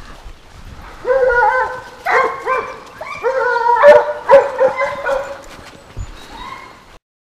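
A pack of running hounds (chiens courants) giving tongue in a fox chase: repeated, drawn-out yelping bays from several dogs that start about a second in and overlap. The sound stops suddenly near the end.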